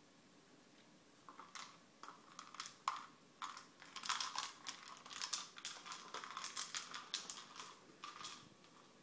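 Plastic cat treat ball being nosed and rolled across a hard tile floor by a cat, giving a quick, irregular run of rattling clicks from the loose treats inside and the ball knocking on the tiles. It starts about a second in, is busiest in the middle and stops shortly before the end.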